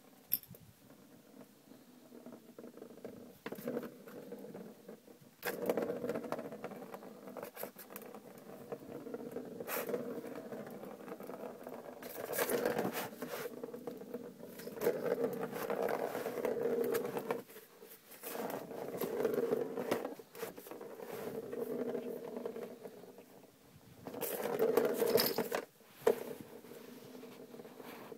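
A plastic ball rolling around the channel of a circular plastic track toy, batted by a cat, in repeated rumbling spells of one to three seconds, with a few sharp knocks in between.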